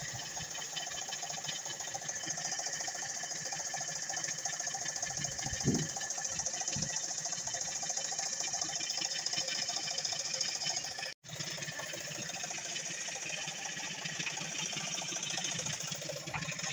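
A machine running steadily with an even, high-pitched mechanical hum, broken by two low thumps about six seconds in and cut off for an instant near the middle.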